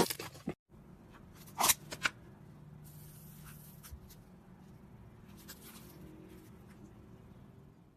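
Slime being handled: a few short sticky clicks and pops about a second and a half in, then faint rustling and a brief hiss over low room noise.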